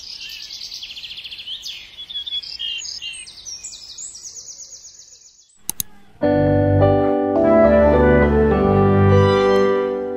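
Small birds singing, with quick repeated chirps and trills, for about the first five seconds. After a couple of clicks, background music with long held keyboard notes starts loudly about six seconds in.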